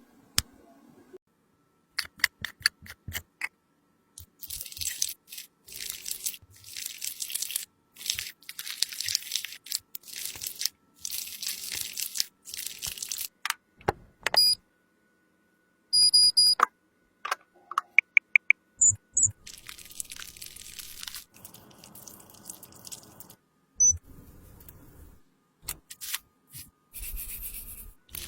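Close-up scraping and crunching of makeup being worked with a tool. There is a series of scraping strokes, each about a second long, with sharp clicks and taps between them and a cluster of loud clicks midway.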